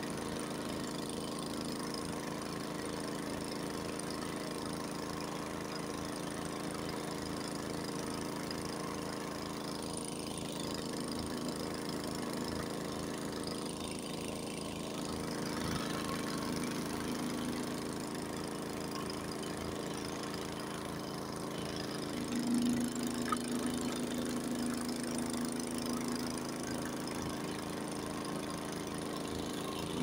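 Honda HS80 snowblower's engine running steadily while it clears snow, with an even, regular beat. About three-quarters of the way through, the engine note strengthens and gets a little louder for a few seconds.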